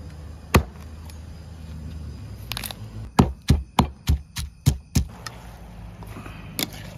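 A cleaver chopping chicken on a wooden chopping block, then a quick run of about seven sharp strikes, roughly four a second, as a pestle pounds herb paste in a stone mortar.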